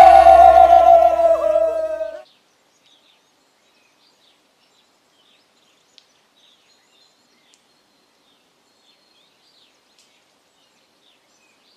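Men's voices in a long, loud shouted war cry that cuts off suddenly about two seconds in, followed by faint bird chirps.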